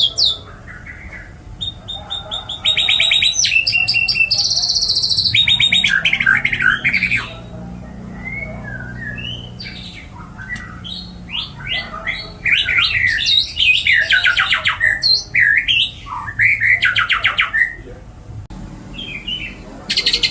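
White-rumped shama (murai batu) singing a long, varied song of rapid repeated notes, trills and gliding whistles, with mimicked phrases of other birds woven in. It is softer for a few seconds in the middle.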